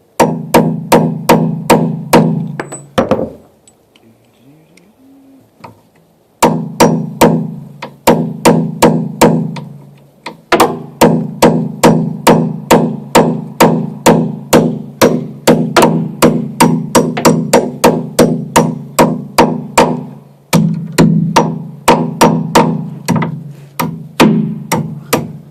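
Hammer blows on a 3/8 bolt used as a punch to drive the retaining pin out of a compact track loader bucket tooth, about three strikes a second, each with a ringing metallic tone. The hammering stops for about three seconds near the start, then resumes with short breaks. The pin is stuck and won't come out easily.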